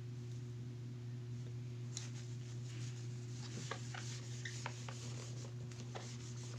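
Hand wiping marker writing off a whiteboard: a soft rubbing with a few light ticks, starting about two seconds in, over a steady low electrical hum.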